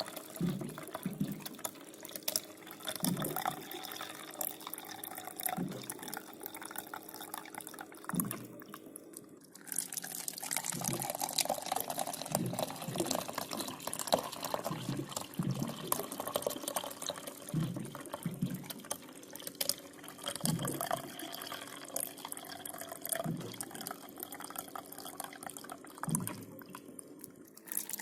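Water running from a water dispenser's tap into a container, with irregular low gurgles every second or two. The flow stops briefly about nine seconds in and again near the end, then resumes.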